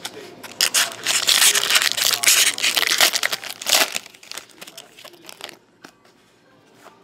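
Foil wrapper of a 2013-14 Panini Select hockey card pack being torn open and crinkled, with loud crackling for about three seconds. Then come a few quieter clicks and rustles as the cards are slid out and handled.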